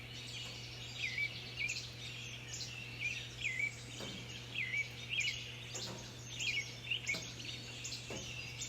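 Songbirds singing at dawn: several birds chirping at once, one repeating a short downward-sweeping note about once a second. A faint steady low hum lies underneath.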